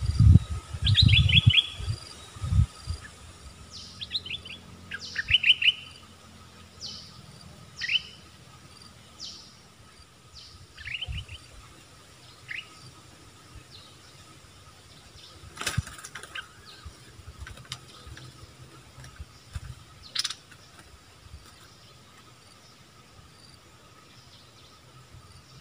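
Bulbuls chirping: short, sharp notes that sweep downward, often in quick runs of two to four, thick over the first six seconds and then thinning to scattered single notes. A few low thumps come under the first calls, and there are two sharp clicks, one about halfway through and one near the end.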